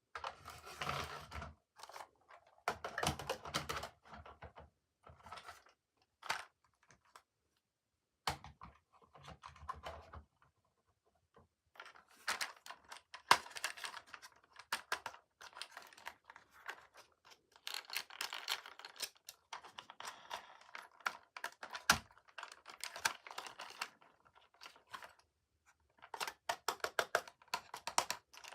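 Toy packaging being opened by hand: plastic and cardboard crinkling, rustling and tearing with small clicks, in short bursts at first and then almost without a break through the second half.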